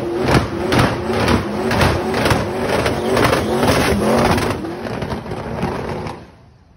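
Twin-turbo V8 of a first-generation Chevrolet Camaro revving hard through a burnout, rear tyres spinning, the engine note surging in pulses about twice a second. Near the end it falls away sharply.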